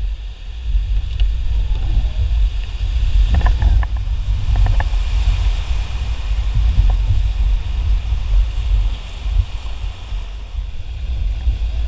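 Whitewater rapids rushing and splashing around a river raft, heard as a steady loud wash with a heavy low rumble buffeting the camera's microphone. A few short knocks come about three to five seconds in.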